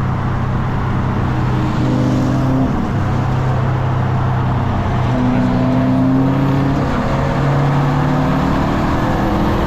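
Subaru WRX STI turbocharged flat-four engine, rebuilt with Stage 1 cams, running steadily with its pitch rising and falling a few times as the revs change.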